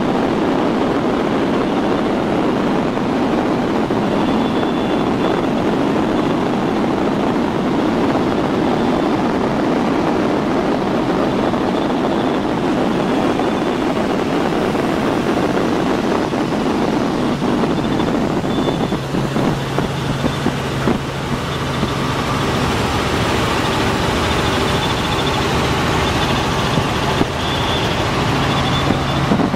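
Robinson R44 helicopter in flight, heard from inside the cabin: a steady rush of engine, rotor and wind noise. A low steady hum comes in about two-thirds of the way through.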